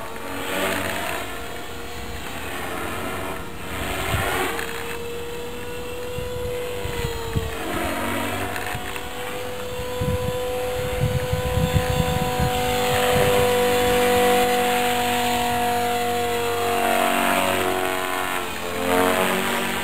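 A radio-controlled model aircraft flying, its motor giving a steady whine that wavers slightly in pitch and sweeps as it passes to and fro. Gusts of wind rumble on the microphone, strongest about halfway through.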